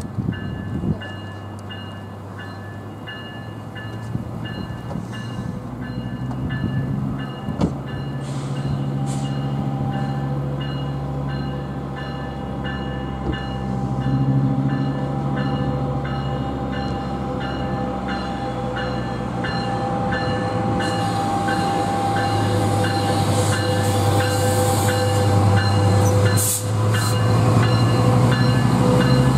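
Diesel passenger train rumbling and growing steadily louder, with a bell ringing at a steady pace throughout.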